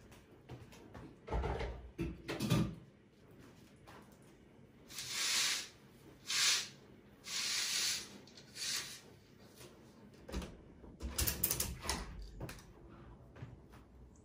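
Kitchen handling noises: a few dull knocks and clunks, then four short scraping or sliding sounds like drawers or cupboards being worked, then more knocks and clatter near the end.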